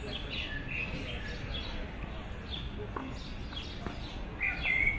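Small songbirds chirping in short, repeated high calls, with a louder run of chirps near the end.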